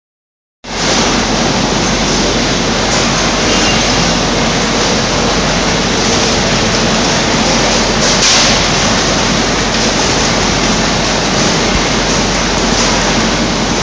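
Citrus packing-line machinery running with a loud, steady noise that starts abruptly about half a second in.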